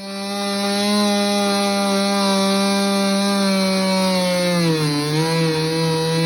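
Power cutting tool starting up and cutting into a boat's floor: a loud, steady buzzing whine that sags in pitch about five seconds in as the blade loads up in the cut, then comes back up.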